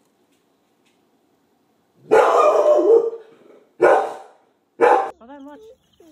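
A dog barks loudly three times: a long first bark about two seconds in, then two short ones a second apart. A brief wavering whine follows.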